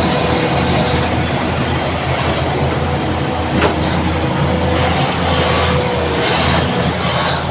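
Bulldozer's diesel engine running steadily with a heavy low rumble, with a sharp metallic clank about three and a half seconds in and a thin whine coming and going.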